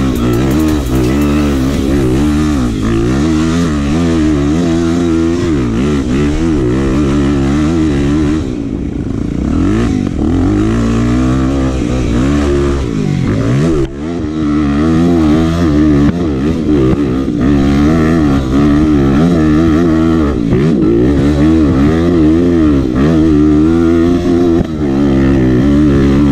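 Off-road motorcycle engine revving hard, its pitch rising and falling again and again with the throttle as it works up a steep dirt hill climb. It eases off briefly about nine seconds in.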